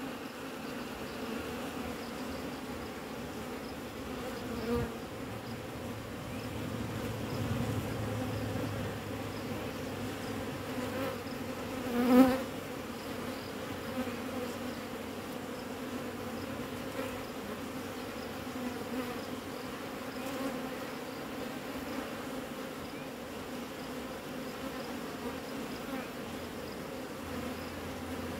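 Honeybees buzzing in a steady hum at the entrance of a traditional wooden hive. About twelve seconds in, one buzz swells loud for a moment.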